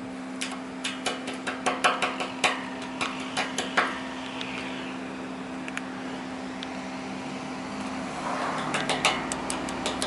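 Pliers clicking and scraping on thin steel binding wire wrapped around a taped stainless-steel pipe: a quick run of sharp metallic clicks for the first few seconds, a lull, then another run near the end. A steady low hum sounds underneath throughout.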